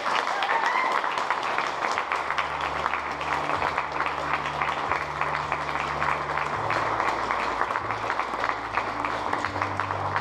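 Audience applauding steadily. Low held notes of music come in underneath about two seconds in and change pitch partway through.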